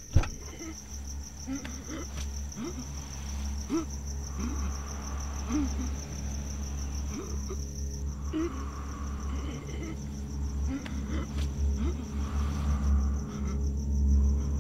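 Crickets chirping steadily in a high, pulsing trill, over a low rumble that grows louder near the end. A single sharp thump sounds right at the start.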